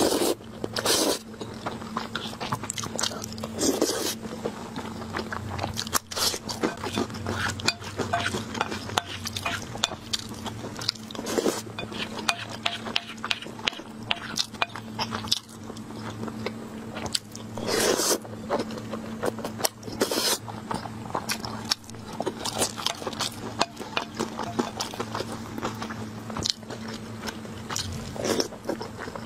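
Close-miked eating sounds: noodles slurped in several loud bursts a second or so long, with wet chewing and biting between them. A steady low hum runs underneath.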